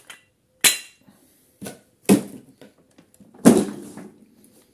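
Four sharp knocks and clatters of hard tools and parts being handled on a lawnmower engine. The loudest comes about three and a half seconds in and rings on briefly.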